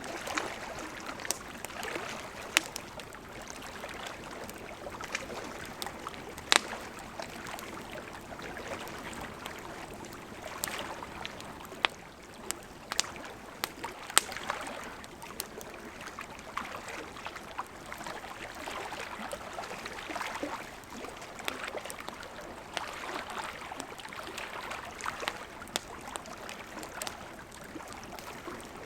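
Campfire crackling, with sharp pops every second or two, over small lake waves lapping in gentle swells.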